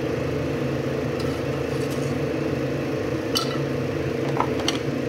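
Water boiling hard in a stainless steel pot, a steady low rumble, with a few light metallic clinks of the ladle against the pot about three and a half and four and a half seconds in.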